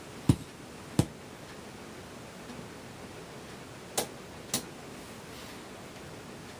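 Sears Silvertone console radio giving a steady static hiss, broken by four sharp clicks: two about a second apart near the start and two close together past the middle.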